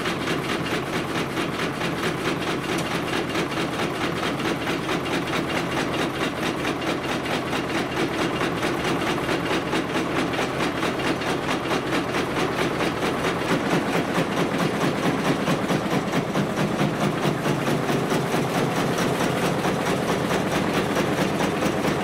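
Frame sawmill (gang saw) running empty: the reciprocating saw frame goes up and down in a fast, even rhythm, driven by an electric motor through a flat belt and flywheels. The machine has just been started again after standing unused for about seven years.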